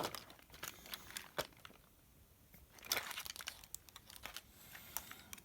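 Faint irregular clicks and rustles of a plastic toy robot and its wired remote being handled, busiest about three seconds in.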